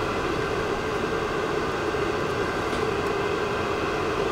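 Steady mechanical drone with several held tones, even in level throughout.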